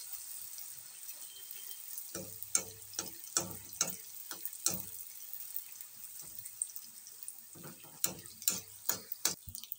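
Bhatura deep-frying in hot oil in an iron kadhai: a steady sizzle, with a quick run of sharp pops and clicks about two seconds in and again near the end as a slotted spoon splashes oil over it.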